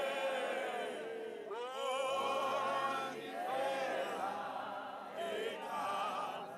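Men singing a Zulu hymn through a megaphone and a handheld microphone, with a choir of women singing along. The notes are long, held and wavering, with brief breaths about a second and a half in and again near five seconds.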